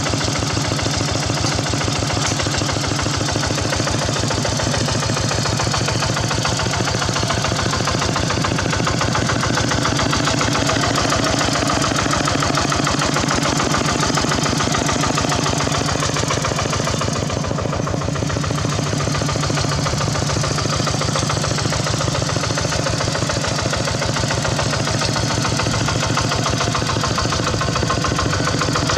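Khmer tractor's engine running steadily with a rapid, even pulsing beat, briefly duller about two-thirds of the way through.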